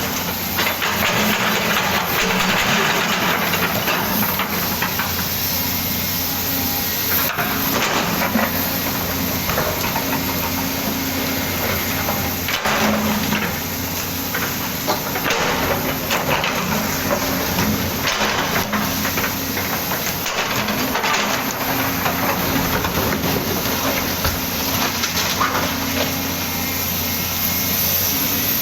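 Volvo excavator's diesel engine running steadily under load, with a constant hiss over it and a few sharp knocks while it digs.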